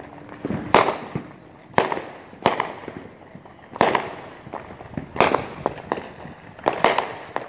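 Aerial mortar-type fireworks bursting in the sky: a run of sharp booms at irregular intervals, about seven loud ones, each trailing off, with smaller pops and crackles between.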